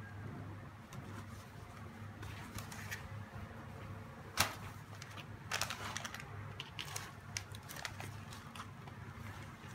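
Unboxing handling noise: a plastic sleeve, paper and a cardboard box crinkling and clicking under the hands in scattered sharp bursts, the loudest a little under halfway in, over a steady low hum.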